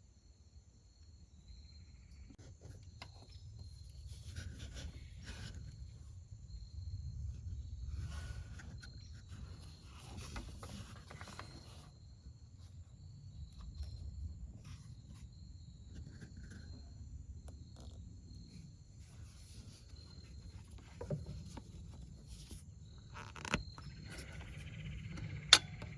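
Scattered clicks, scrapes and rustles of hands fitting a rubber vacuum hose onto a car's PCV valve under the hood, over a low rumble, with crickets chirping steadily. Two sharp clicks near the end, the second the loudest.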